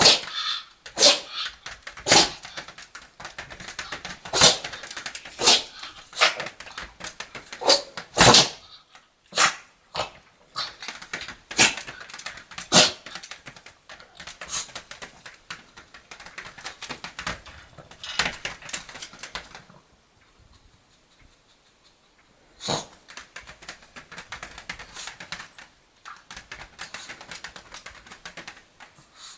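Pomeranian sneezing over and over, short sharp sneezes about once a second for the first dozen seconds, then less regularly. The sneezing stops for a couple of seconds about twenty seconds in, comes back with one hard sneeze, then softer snuffling sounds follow.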